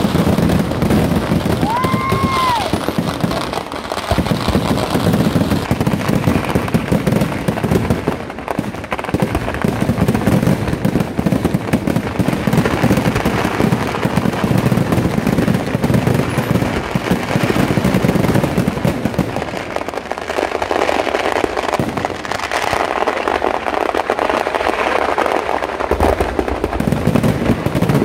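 Kerala temple-festival fireworks (vedikkettu) going off in a continuous barrage of rapid bangs and crackling. A short whistle rises and falls about two seconds in.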